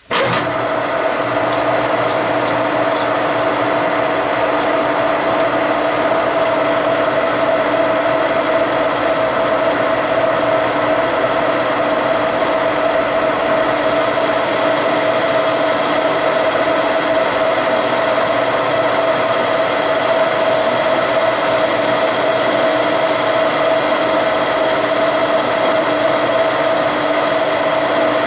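Metal lathe switched on and running steadily with a steady whine, likely taking a cut on the steel steering coupler. A few faint high ticks come in the first few seconds.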